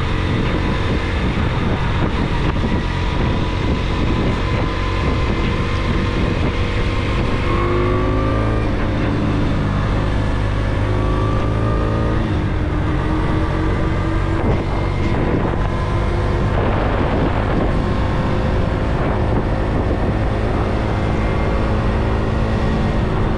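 Motorcycle engine running at road speed with wind rushing past. The engine note rises and shifts several times about a third of the way in as the bike pulls away faster.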